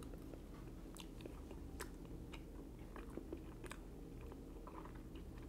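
Faint mouth sounds of a man chewing a mouthful of nasi lemak coconut rice: soft, scattered clicks and smacks over a low steady room hum.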